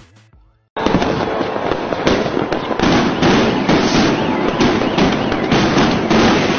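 Many fireworks and firecrackers going off at once across a city, a dense, unbroken run of cracks and bangs that starts suddenly about a second in.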